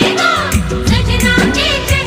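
Bollywood film song playing: a melodic passage between sung lines over a steady percussion beat.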